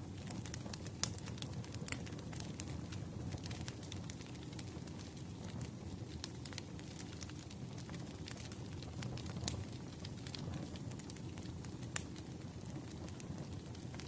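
Firewood burning with a steady low rumble and many scattered crackles and snaps, a few of them louder pops.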